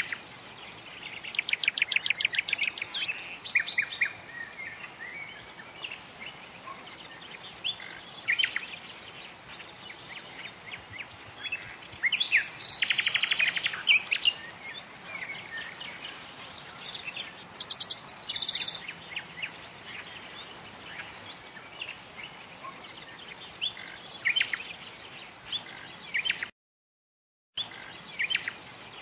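Birds chirping and singing over a faint steady hiss, with bursts of rapid, high trilling notes about a second in, around thirteen seconds in and around eighteen seconds in. The sound cuts out completely for about a second near the end.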